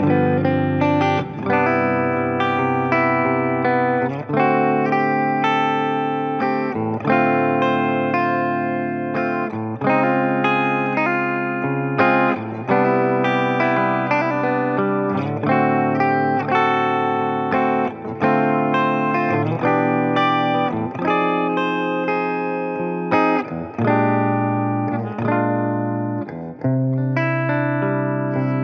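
Gretsch G5222 Electromatic Double Jet electric guitar playing chords and melodic lines, with new notes or chords struck about once a second.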